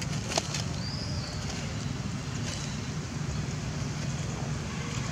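Steady low rumble of wind on the microphone, with one sharp click about half a second in and a short high chirp just after.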